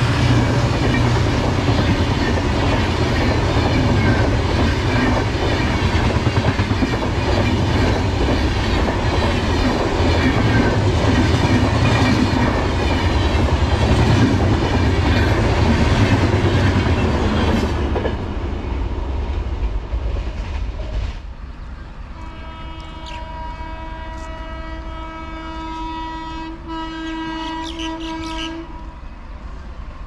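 Passenger express coaches passing close by, a loud rumble with wheels clattering over the rail joints, which dies away about eighteen seconds in. A few seconds later a train horn sounds one long steady blast of about six seconds, broken once briefly near its end.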